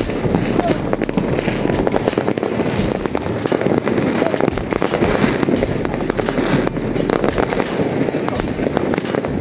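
Many fireworks going off at once: a continuous dense crackle of pops and bangs, with no pause.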